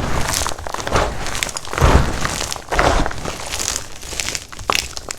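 Black-dyed gym chalk blocks being crushed, crumbling in a run of gritty crunches, the heaviest right at the start, about two seconds in and about three seconds in.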